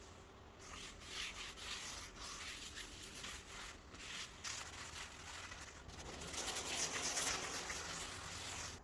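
Uneven rubbing strokes on a wooden tabletop made of four wood species, a rough hiss that gets louder in the last few seconds and cuts off suddenly near the end.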